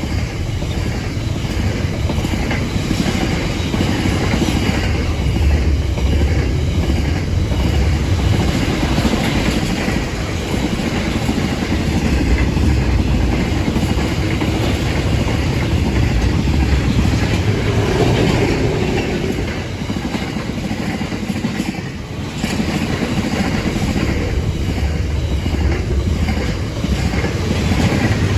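Long freight train of wagons passing at speed, a steady loud rumble with wheels clattering over the rail.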